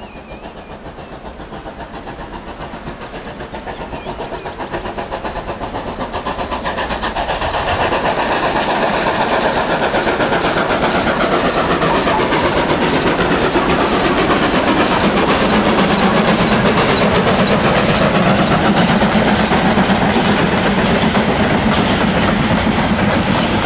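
Steam locomotive hauling a freight train, working hard with a rapid, even exhaust beat that grows louder over the first several seconds as it approaches and then passes close by, followed near the end by goods wagons and a brake van rolling past.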